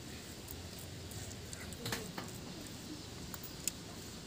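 Faint scraping of fingers gathering ground spice paste off a flat stone grinding slab, with a few light clicks about two seconds in and near the end.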